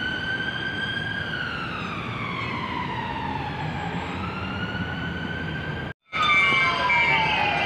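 Ambulance siren in a slow wail, its pitch rising, sliding down over a few seconds, then climbing again, over street traffic. The sound breaks off about six seconds in, and after that a lower siren tone falls away under a steady pulsing beep.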